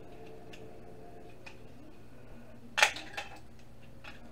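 Small clicks and taps of DVD-drive parts being handled at a workbench, with one sharp click a little under three seconds in. A faint steady hum runs underneath.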